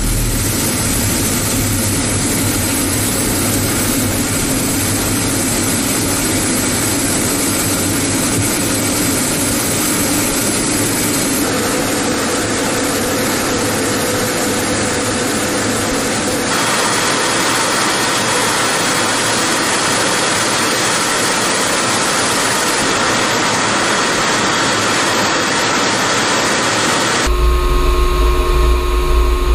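MiG-31BM interceptor's twin D-30F6 jet engines and rushing air, heard from inside the cockpit during takeoff and climb: a loud, steady roar. It changes character abruptly a few times, and near the end turns into a deeper hum with steady tones.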